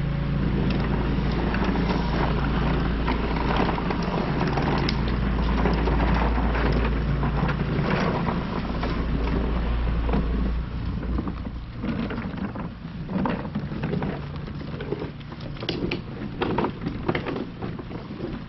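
Black & Decker cordless lawn mower, switched off, pushed by hand: its wheels rumble and rattle steadily over block paving, then about ten seconds in the noise drops as it rolls onto grass, leaving scattered knocks and clicks.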